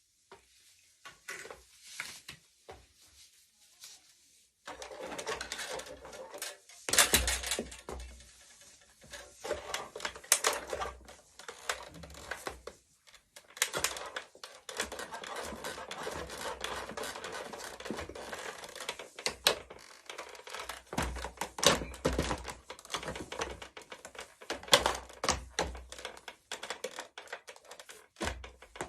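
Sharp clicks, knocks and crackling of high heels against a plastic remote-controlled toy car, scattered and irregular, over a continuous noise that starts about five seconds in.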